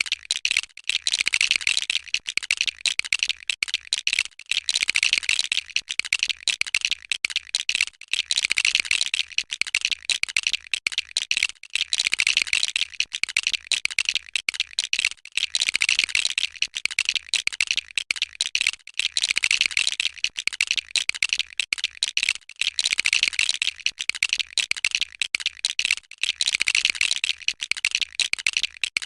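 Plastic LEGO pieces clicking and rattling in rapid, continuous succession as they are handled and snapped together.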